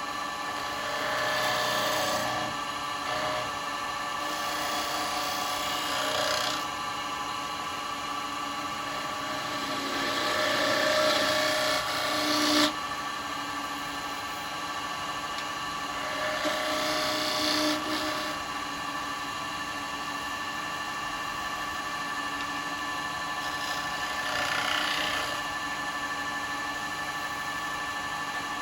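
Wood lathe running with a steady machine hum while a bowl gouge cuts the spinning wooden bowl in several spells, each a rasping shaving sound; the longest cut stops sharply about thirteen seconds in.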